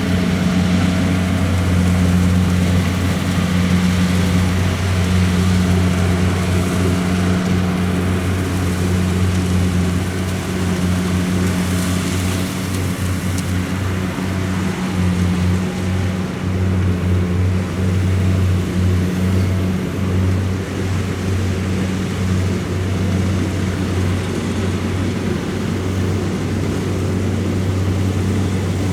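Kubota DC-70 rice combine harvester's diesel engine running steadily, a constant low hum.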